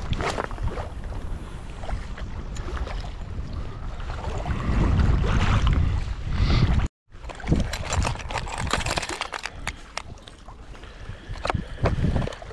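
Wind rumbling on the microphone over sea water lapping and splashing. After a short break about seven seconds in, sharp splashes and clicks come more often.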